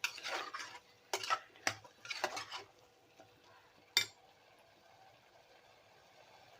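A spoon stirring and scraping onion, tomato, potato and jackfruit seeds as they sauté in a small pressure cooker, with several scraping strokes in the first two and a half seconds. A single sharp clink comes about four seconds in, then a faint sizzle.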